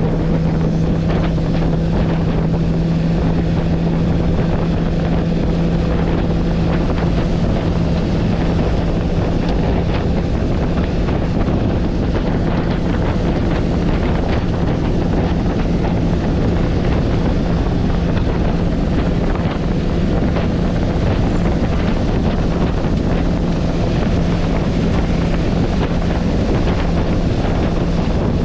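Bass boat outboard engine running at full throttle on a top-speed run near 70 mph: a steady low drone under heavy wind buffeting on the microphone.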